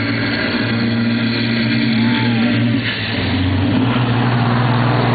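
Two semi trucks' diesel engines at full throttle, launching and accelerating side by side in a drag race. The engine note is loud and steady and steps in pitch a few times.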